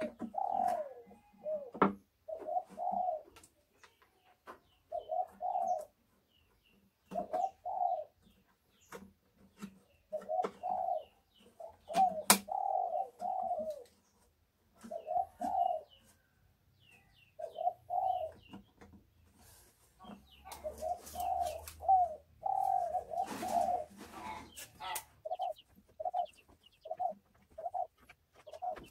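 A dove cooing in short phrases repeated every second or two, with a few sharp clicks and knocks, the loudest about twelve seconds in.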